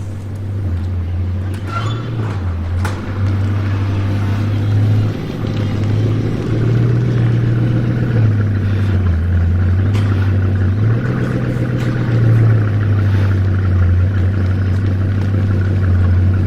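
Bugatti Chiron's quad-turbocharged W16 engine running at idle, its low note shifting slightly up and down every second or two, with a few short clicks over it.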